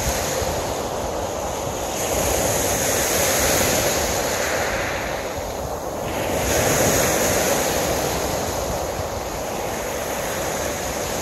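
Small waves breaking and washing up a sand-and-pebble beach, the surf rising and falling as each wave comes in, with wind on the microphone.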